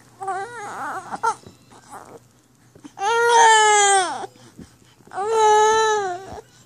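Baby crying: a few short broken fussing sounds, then two long cries of a second or more each, the first trailing down in pitch at its end.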